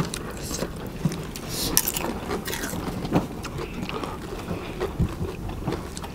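Crisp pani puri shells cracking and crunching as several people eat, with a few sharp cracks standing out, over a steady low rumble of wind on the microphone.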